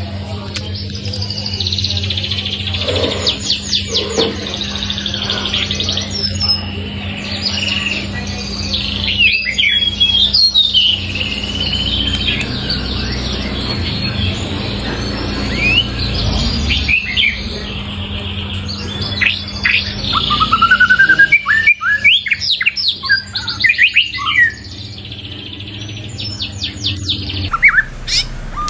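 White-rumped shama singing a loud, varied song of clear whistles, quick trills and rising glides, phrase after phrase.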